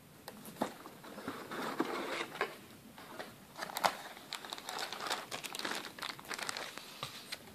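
Clear plastic bag crinkling and crackling in irregular bursts as the model-kit sprues sealed inside it are handled.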